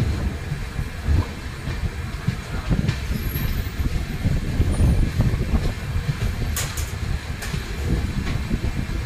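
Railway parcel vans rolling past close by: a steady low rumble of wheels on the rails, with a few sharp clicks from the wheels, two of them close together about two-thirds of the way through.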